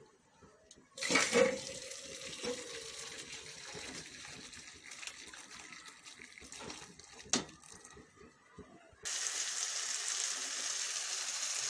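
Boiled macaroni and its cooking water poured from an aluminium pot into a stainless mesh strainer, starting with a ringing metal clank about a second in, then a splashing pour. About nine seconds in it gives way to a steady sizzle of masala frying in oil in a wok.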